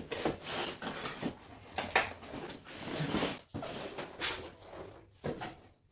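A cardboard graphics-card box being handled and its lid folded shut: rustling and scraping of cardboard, with a few light knocks.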